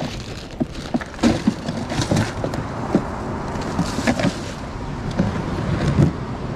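Handling noise at an ice cooler: a plastic bag of ice crinkling and rustling, with irregular knocks and clatter against the plastic cooler. A louder knock comes near the end as the lid is shut.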